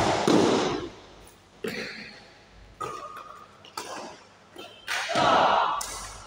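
Doubles badminton rally in an echoing sports hall: rackets striking the shuttlecock about five times, roughly once a second. The loudest hits come right at the start and about five seconds in.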